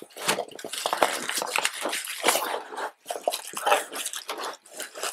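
Hands rummaging through a cardboard box full of foam packing peanuts, a dense run of irregular rustles and scrapes as the foam pieces are shuffled against each other and the box, with a brief pause about three seconds in.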